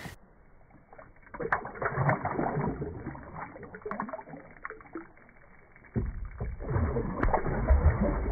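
Muffled water sloshing and splashing as a smallmouth bass is held in the water for release. The splashing grows louder about six seconds in as the fish kicks free and swims off.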